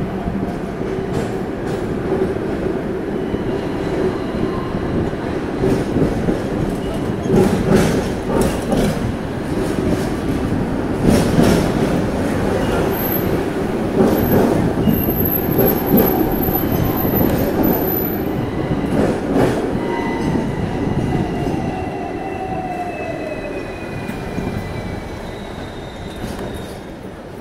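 Hong Kong double-decker electric tram running on street rails, heard from its upper deck: a steady rumble with knocks from the wheels over the track. From about two-thirds of the way in, the wheels squeal with thin falling tones as the tram slows toward a curve, and the running noise eases off near the end.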